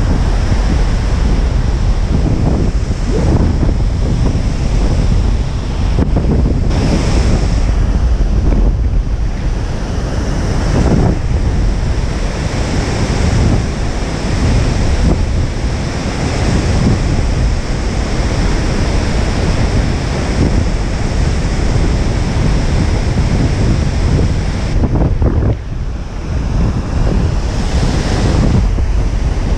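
Strong wind buffeting the microphone over the continuous roar of heavy surf breaking, surging and easing every few seconds.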